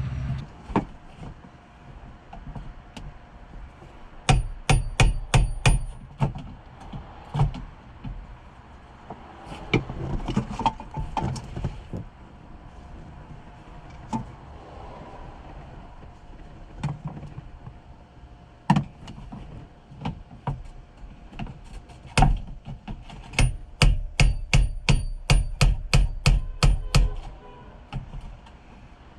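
Bursts of sharp metallic knocks, a screwdriver striking the fuel pump's locking ring to turn it and break it free: a quick run of about seven knocks early, scattered single knocks, then a longer run at about four a second near the end, with scraping between.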